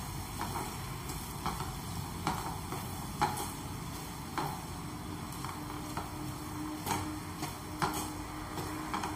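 Slotted wooden spatula stirring chopped onions frying in oil in a non-stick kadhai, giving irregular scrapes and taps against the pan over a faint sizzle.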